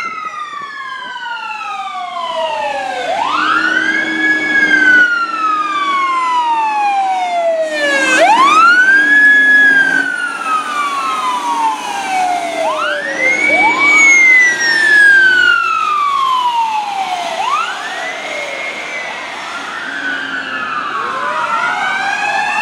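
Fire ladder truck's siren wailing, each cycle climbing quickly and then sliding slowly back down, about every four to five seconds. Near the end a second siren, from the following rescue ambulance, joins with a different pitch.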